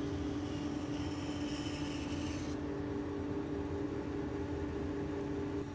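Bandsaw running with a steady hum while its blade cuts a curve through a jelutong hardwood block; the higher cutting hiss stops about two and a half seconds in as the cut finishes, leaving the saw running free.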